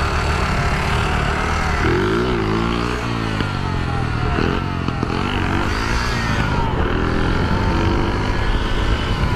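Shineray 49cc motorcycle engine running while riding, its pitch rising and falling several times as it revs up and down. It carries a strange noise that a friend blames on a bad clutch.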